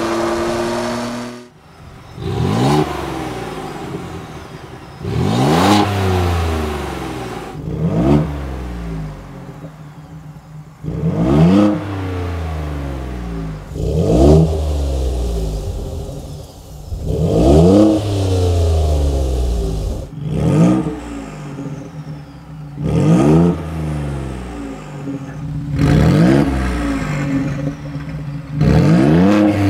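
Ford Bronco engine revved again and again through stainless-steel aftermarket exhaust setups: about ten quick blips, each rising then falling in pitch, with idle between them. Short breaks come where the sound switches from one setup to the next, among them the straight-through Redline catback and then the downpipe with the Redline.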